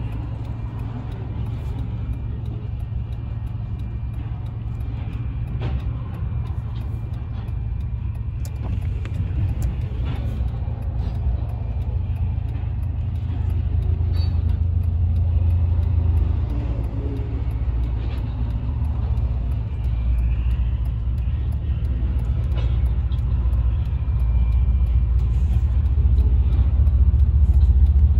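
Freight train of covered hopper cars rolling past a level crossing: a steady, deep rumble of wheels on rails, muffled as heard from inside a car, getting louder toward the end.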